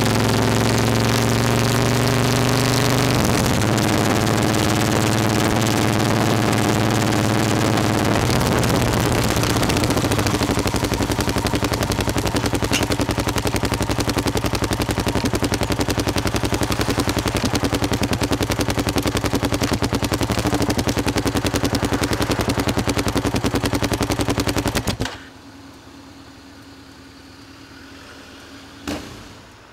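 Motorcycle engine running as the bike slows, the pitch stepping down a couple of times, then idling with an even, rapid pulse. It is switched off about 25 seconds in and stops suddenly, followed by a single short knock near the end.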